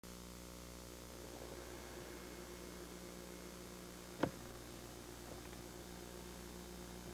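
Steady electrical hum and hiss of an old VHS camcorder recording, with one sharp click about four seconds in.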